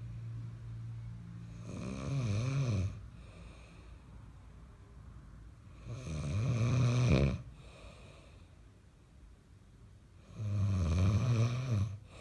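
A man snoring in his sleep: three loud snores about four seconds apart, each lasting a second or so, much quieter in between.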